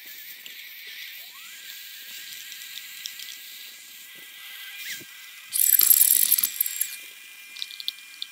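Countertop blender motors running with a thin, high-pitched whine that rises about a second in and then holds steady, while they grind peanuts into peanut butter. A loud hissing burst of noise, about a second and a half long, comes midway as the jars and tamper are handled.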